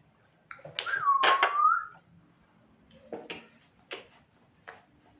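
Javan myna (jalak kebo) calling: a loud harsh burst with a whistled note that dips and rises, about a second in, followed by a few sharp single clicks.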